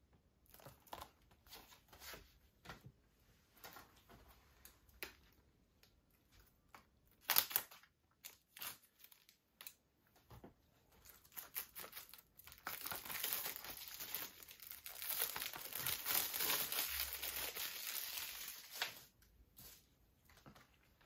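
Plastic shrink-wrap being torn open and peeled off a Blu-ray case. Scattered crackles come with one sharp snap about a third of the way in, then a longer stretch of continuous crinkling as the wrap is pulled off and crumpled.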